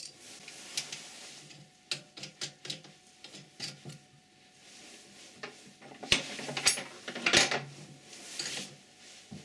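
Metal parts and hand tools clinking and knocking as they are handled during assembly of a lathe vise-holder fixture. Light scattered clicks come first, then a run of louder clanks about six to seven and a half seconds in.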